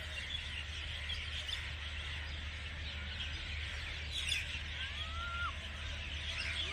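Many birds chirping together in trees, a dense high twittering, with one clearer arched call about five seconds in. A steady low hum runs underneath.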